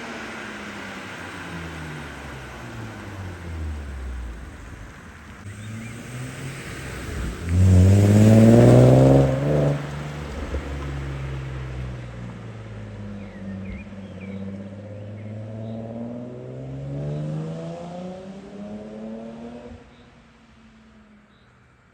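BMW E36's 2.8-litre straight-six being driven hard: engine pitch drops, then revs climb steeply to the loudest point about eight seconds in, and the car keeps pulling with a slowly rising note before fading away near the end. Faint birdsong can be heard as it fades.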